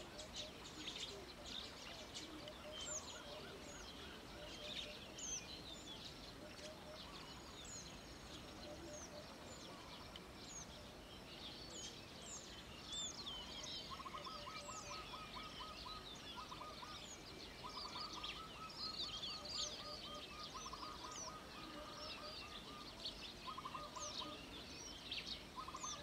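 Small birds chirping and twittering over the rice fields, with a rapid, pulsed trill that repeats in runs from about halfway through, and a lower short call repeating in the first half.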